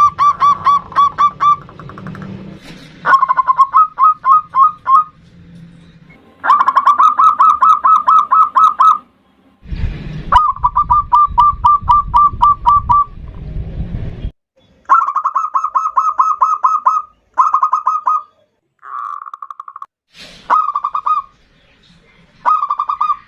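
Zebra dove (perkutut) cooing: burst after burst of rapid staccato coo notes, about six or seven a second, each burst lasting one to two and a half seconds with short pauses between. A low rumbling noise runs under one burst near the middle.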